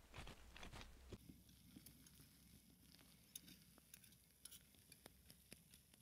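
Near silence, with faint, scattered clicks and ticks.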